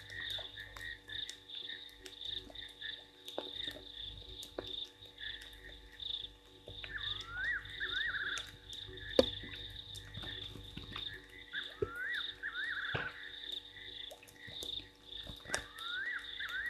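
Night chorus of frogs at a waterhole: a steady high trilling, and every few seconds a phrase of rising chirps that ends in a quick trill. Scattered sharp ticks are heard throughout, one louder about nine seconds in.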